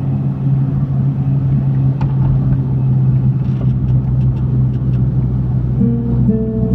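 A road vehicle driving: a steady low drone and rumble, with a few faint ticks midway. Near the end, plucked music notes begin as the next song starts.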